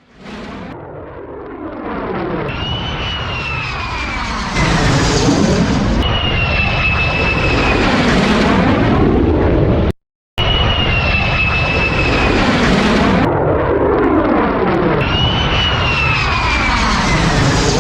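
Fighter jet flying by: a loud rushing roar with a high whine that bends downward in pitch. It swells up from quiet over the first few seconds, cuts out abruptly about ten seconds in, and starts again at full loudness as the recording loops.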